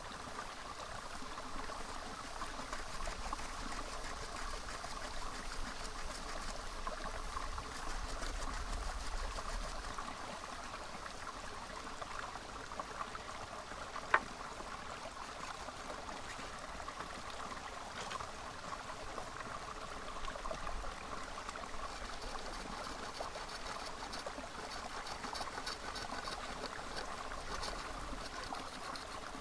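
Small stream flowing and trickling steadily, with a single sharp click about halfway through.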